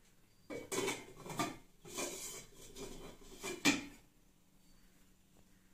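Kitchen clatter of a metal kadai and its aluminium lid: several short knocks and scrapes as a wooden spatula works the pan, then a sharper clank near the end as the lid is set down on it.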